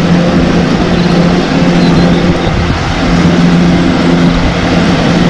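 Wheel loader's diesel engine running steadily under load as its plow blade pushes through deep snow: a constant engine hum over a loud rush of noise.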